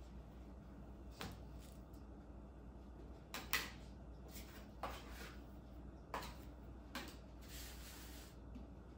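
Sourdough dough being handled on a kitchen counter: a handful of light knocks and short scrapes, one firmer knock about three and a half seconds in, and a longer soft scrape near the end.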